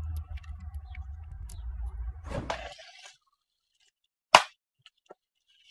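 A low outdoor rumble and a brief rustle that stop about three seconds in, then one sharp plastic snap as the latch of a clear plastic parts-organizer box is flipped open, followed by a few faint clicks.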